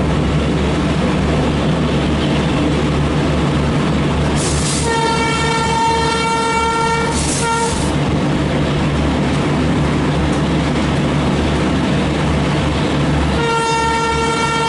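A WAP5 electric locomotive's horn over the steady rumble of the moving train. There are two long blasts: the first lasts about three seconds with a brief break near its end, and the second starts near the end and is still going.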